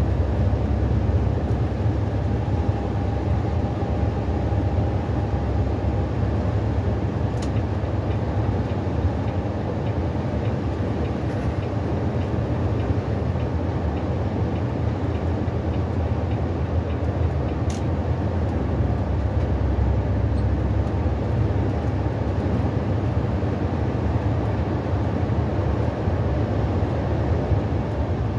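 Steady low rumble of a coach bus cruising at motorway speed, heard from inside the cabin: engine and road noise. Two faint clicks come through, about a third and two-thirds of the way in.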